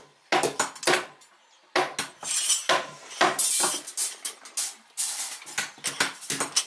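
Steel reinforcing bars clinking and clanking as a rebar cage is handled: rapid, irregular metal strikes with short ringing, with a brief lull about a second in.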